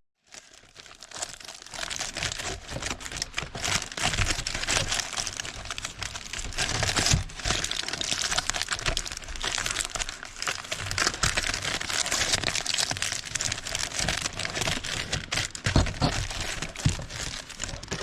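Aluminum foil crinkling steadily as it is folded and pressed by hand into a small bowl.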